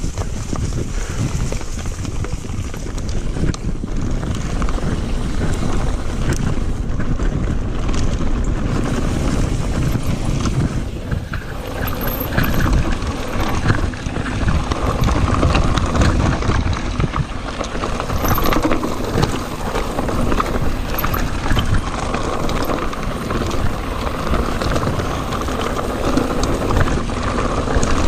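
Mountain bike ridden fast over a rough dirt and gravel trail: wind buffeting the camera microphone over tyre noise and a constant clatter of small knocks and rattles from the bike on the rough ground.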